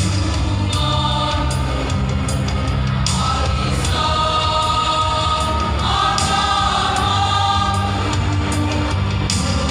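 Choir singing long held chords, with a steady low accompaniment beneath.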